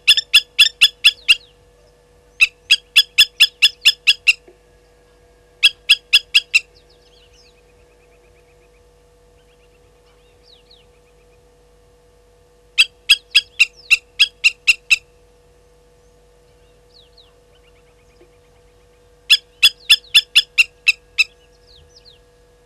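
Blacksmith lapwings giving their sharp, metallic 'tink-tink' alarm calls in five bursts of about three to four calls a second, with pauses between, as they are upset by a slender mongoose moving near them.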